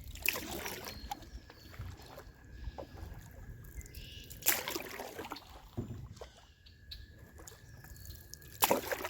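Canoe paddle strokes in the water: three sloshing splashes about four seconds apart, with water trickling and dripping from the blade between them.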